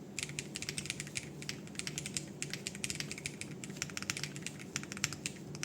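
Fast, continuous typing on a foamless hall-effect keyboard built from a Rule60 V3 case with acrylic filler, a PC plate, Owlab Ti HE magnetic switches and ABS doubleshot keycaps: a rapid stream of crisp keystroke clacks, heard through a phone microphone.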